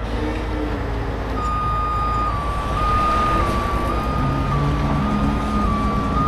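Heavy truck running with a steady low rumble; about a second and a half in, a single high whine joins it, stepping slightly up and down in pitch.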